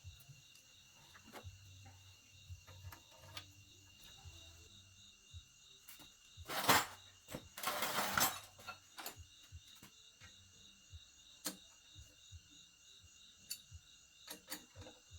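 Insects chirping steadily with a high pulsing trill, over scattered clicks and knocks of handled metal parts. About halfway through come two loud rushing noise bursts, one short and one about a second long.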